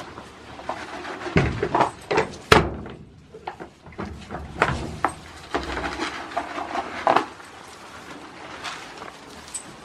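Goats moving about a wooden pen: irregular knocks and thumps on wood, the loudest about two and a half seconds in, with lighter clicks and rustling between.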